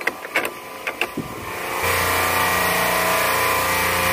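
Intro logo sound effect: a few sharp clicks, then about two seconds in a loud, steady, engine-like rushing sound with a low hum sets in and holds.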